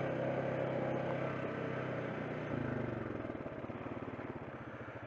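ATV engine running steadily on the trail. About two and a half seconds in, the throttle comes off and the engine drops back to a slow, pulsing idle that gets quieter as the machine slows.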